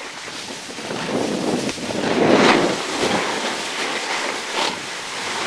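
Wind rushing over the microphone while sliding downhill, mixed with the scraping hiss of sliding over packed, tracked snow; the noise swells loudest about two seconds in.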